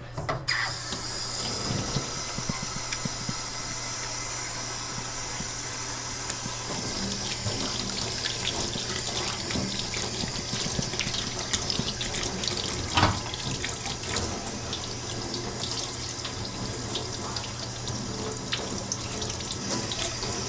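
Kitchen tap running into a sink, a steady rush of water that starts just after the beginning, with a few small knocks and one louder knock about 13 seconds in.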